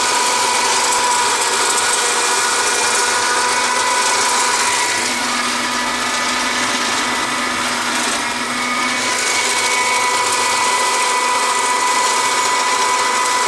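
Tractor engine and Hayes 2.4 m flail mower running steadily under load, cutting thick wetland grass, with a steady whine over the machine noise. The sound eases briefly midway, then picks up again.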